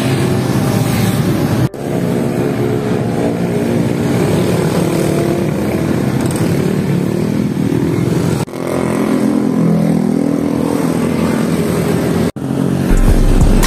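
Motorcycles and scooters passing close by on a road, engines running with some revving, heard in several short clips joined by abrupt cuts.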